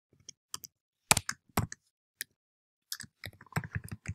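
Typing on a computer keyboard: separate keystrokes with a few louder clacks in the first half, then a quick run of keys near the end.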